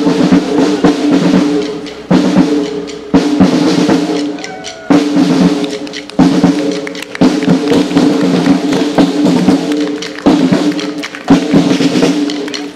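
Marching drums playing a procession beat, snare strokes and rolls with bass drum, over held pitched notes that break off and start again every second or two.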